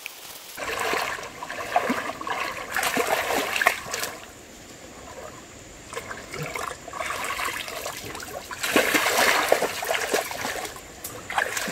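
Water being splashed and poured over an animal being bathed, coming in several bursts of splashing and trickling with short pauses between.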